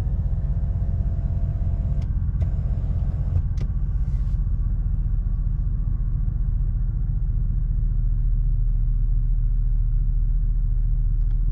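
Pickup truck engine idling with a steady, deep exhaust rumble, just after a new tune was flashed from a handheld tuner. A few faint clicks come in the first few seconds.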